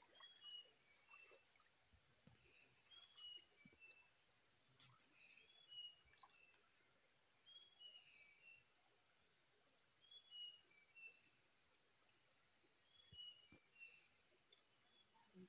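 Steady high-pitched drone of insects, with short bird chirps in small clusters every two to three seconds.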